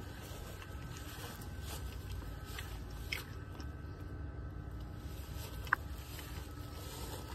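Footsteps swishing and crunching through thick lawn grass, over a low rumble of wind and handling on a phone microphone, with a few soft ticks and one short sharp high blip late on.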